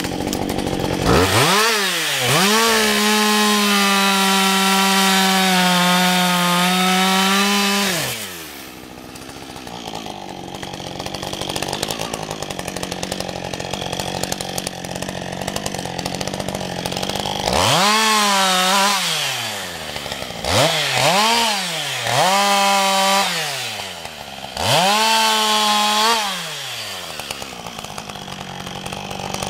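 Husqvarna 562 XP two-stroke chainsaw revving to full throttle and holding it for about seven seconds while cutting dry ash wood. It then drops back to idle, and later gives four short full-throttle bursts before idling again.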